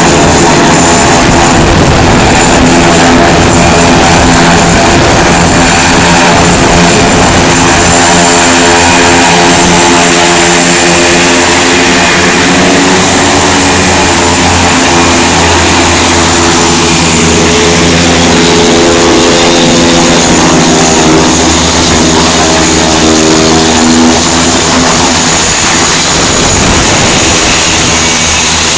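Pratt & Whitney PT6A turboprop engines of taxiing military trainer aircraft running at low power close by. A steady, loud propeller drone with a thin high turbine whine, its pitch drifting slightly as the aircraft roll past.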